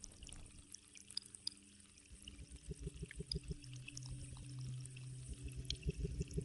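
The opening of a dance track: recorded rain and water-drip sounds with scattered droplet ticks, joined a few seconds in by a low held tone and soft low pulsing as the music begins.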